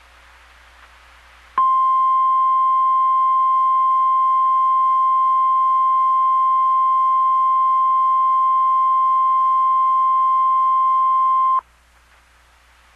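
NOAA Weather Radio 1050 Hz warning alarm tone: a single steady beep held for about ten seconds, starting about a second and a half in and cutting off suddenly, over faint radio hiss. The tone alerts listeners and switches on tone-alert weather radios ahead of a watch or warning message.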